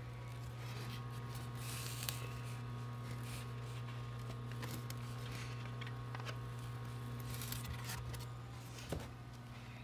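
Rustling and light clicks of hands handling a styrofoam incubator lid and a plastic egg tray as an egg is set back in, with a sharper knock about two seconds in and another near the end. A steady low hum runs underneath.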